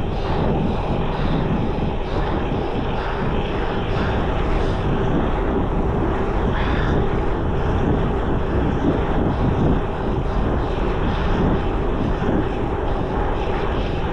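Wind rushing over the microphone of a camera on a moving bicycle: a steady, loud rumble and hiss.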